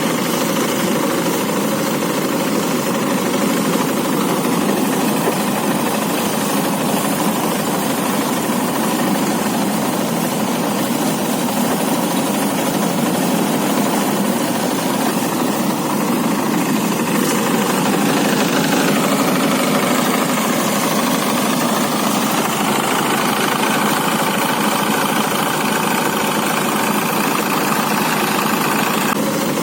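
Engine-driven rice threshing machine running steadily, a loud continuous machine noise.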